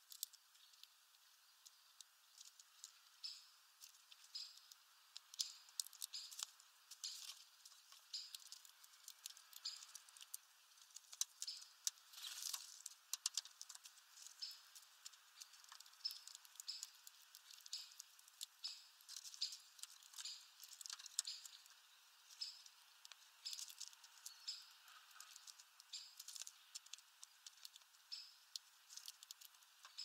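Small birds husking sunflower seeds at a feeder: European greenfinches cracking shells with their bills, a quick irregular run of small sharp clicks and crackles with husks pattering on the tray.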